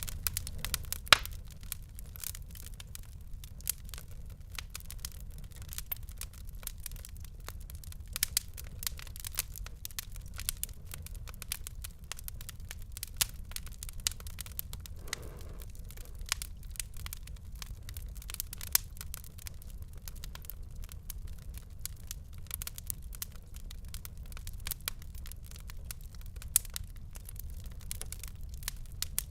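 Fire crackling: a steady low rumble of flames with many irregular sharp pops and snaps throughout, one loud pop about a second in.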